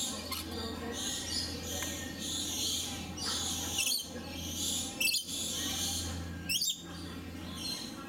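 Lories and lorikeets in an aviary chattering with dense high-pitched chirps, with several sharp, shrill squawks in the second half.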